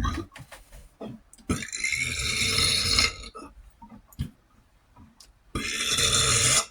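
A man burping: a short burp at the start, then two long, drawn-out burps about a second and a half in and near the end. He puts the gas down to garlic, water and coffee.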